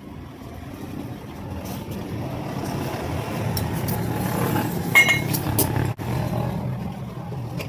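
Motor vehicle rumble growing louder over the first few seconds, with a sharp clink about five seconds in.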